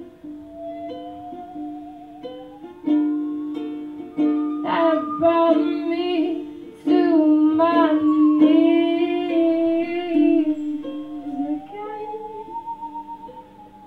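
Live acoustic folk music without words: plucked ukulele or guitar notes over a held low note, with a smooth, sliding, wavering melody line that swells louder in the middle and eases off near the end.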